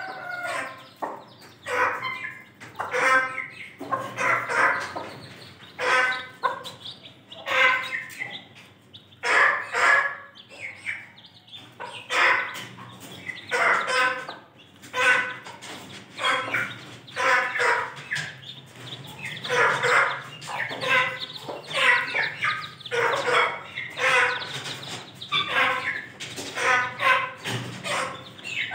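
Aseel mother hens clucking to their chicks: a long run of short calls, about one a second.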